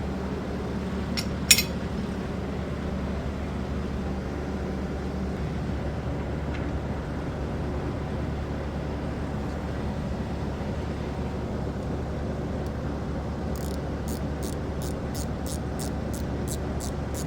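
Shop heater running with a steady drone and low hum. One sharp knock comes about a second and a half in, and a quick, regular clicking, about three clicks a second, starts near the end.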